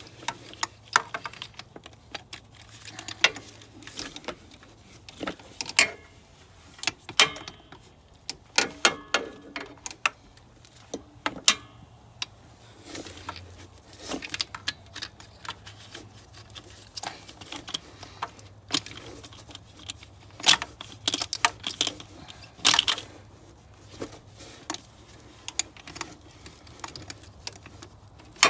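Hand tools clicking, clinking and knocking on metal at irregular intervals, wrench and socket work on the alternator's mounting bolt and power-lead nut as the alternator is taken off.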